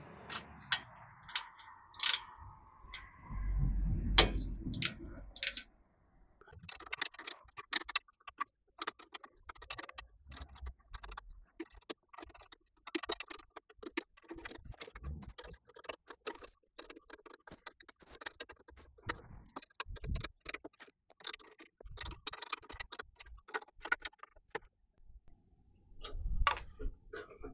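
Hand work on an electric motor's mounting, lowering the motor to tension the drive belts: a long run of rapid, light metallic clicks and small scrapes, with a dull knock about four seconds in and another near the end.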